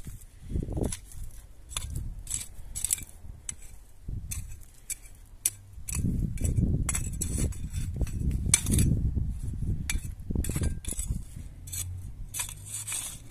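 Small hand spade digging into dry, stony soil: a string of scraping strokes with the metal blade clinking against stones, and heavier, duller strokes through the middle stretch.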